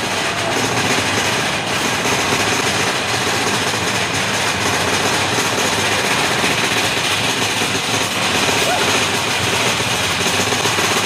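Big Thunder Mountain mine-train roller coaster running through a tunnel: a loud, steady rumble of the train on its track with rushing noise, and no breaks.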